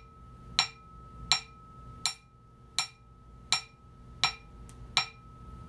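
A wooden dowel taps a modified, constrained-layer damped and stiffened Sony PS-X800 aluminium turntable platter seven times, about three-quarters of a second apart. Each tap is a short, dead knock that dies away almost at once, the sign of a well-damped platter. A faint steady high tone hangs on underneath.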